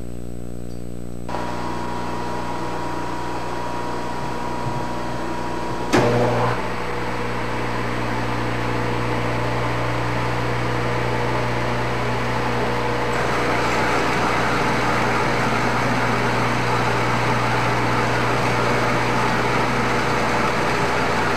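Engine lathe running under power while a single-point threading tool cuts a screw thread, several passes each deeper: a steady motor and gear hum under the rough hiss of the cut, which grows louder in the second half. A single sharp clunk about six seconds in.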